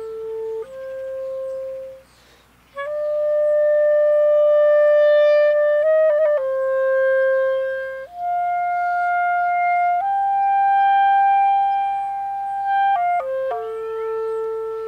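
Solo clarinet playing a slow melody of long held notes joined by short quick runs, with a brief breath pause about two seconds in.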